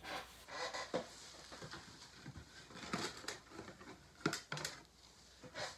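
Light clicks, taps and scrapes of small objects being handled on a work table, one sharper tap about four seconds in.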